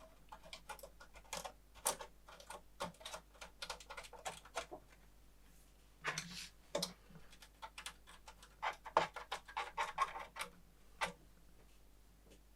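Irregular sharp clicks and small knocks of hard parts and tools being handled, coming in uneven clusters.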